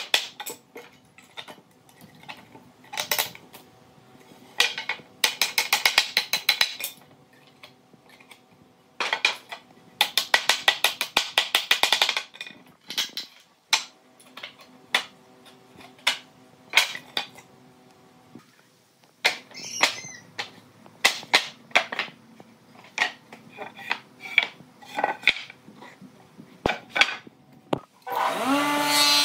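Woodworking hand-tool work: bursts of rapid clicking strokes and single knocks on wood. Near the end an electric power tool starts, rising in pitch to a steady whine.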